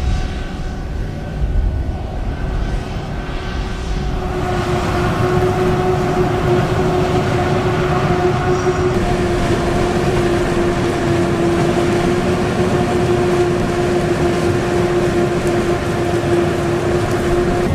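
Machinery running steadily: a droning hum over a low rumble, growing a little louder about four seconds in.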